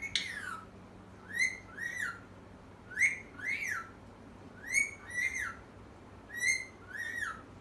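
A pet parrot whistling a two-note phrase, each note rising and then falling, repeated four times at an even pace.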